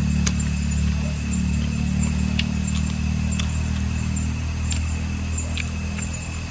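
A steady low engine-like hum throughout, with a thin steady high tone above it and scattered light clicks.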